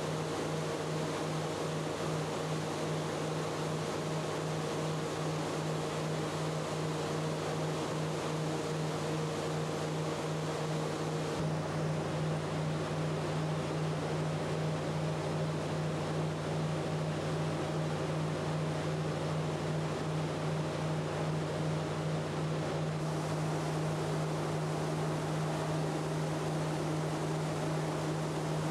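Coffee dry-mill processing machinery running: a steady mechanical din with a pulsing low hum. The mix shifts slightly twice, about a third and two-thirds of the way through.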